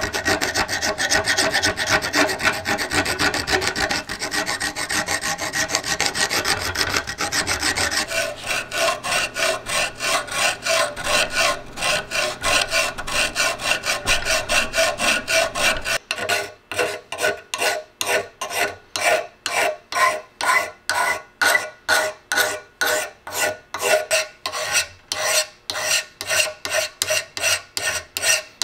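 Hand files rasping on the steel head of a lath hammer held in a vise, stroke after stroke. The strokes come quick and close together at first, then, about halfway through, slower and separate at about two a second.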